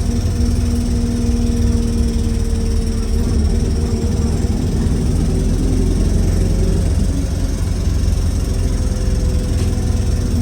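Wright StreetLite bus making a very loud, strange noise: a heavy low drone with a steady hum over it that fades out about halfway through and comes back right at the end. The cause of the noise is not known.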